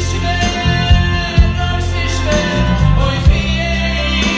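Live band music with male lead vocals: two singers trading a melody into microphones over keyboard, bass and drum hits.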